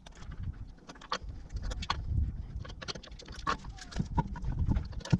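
Metal lug nuts clinking and knocking as they are spun off the wheel studs and handled, a run of irregular small clicks with a louder knock near the end.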